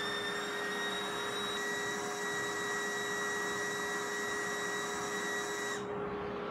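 Main dust collector running on its own, pulling a steady rush of air through an open 4-inch PVC port, with a steady hum. A vane anemometer held in the airflow adds a high whine, which stops suddenly near the end as the meter is pulled away.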